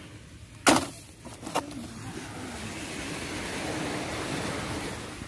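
Two sharp knocks about a second apart, the first louder, then a steady rushing noise of surf and wind.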